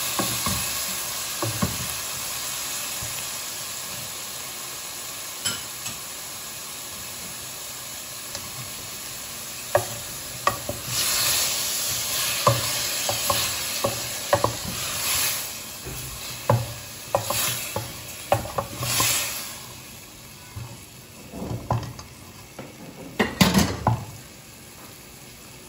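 Chicken and vegetables sizzling in sauce in a hot metal pan while being stirred with a wooden spatula. The sizzle fades gradually, and from about ten seconds in the spatula scrapes and taps against the pan in quick strokes, loudest near the end.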